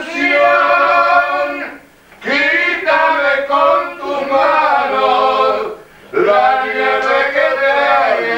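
A group of men singing together a cappella in murga style, holding long chords in phrases, with two short breaks for breath about two and six seconds in.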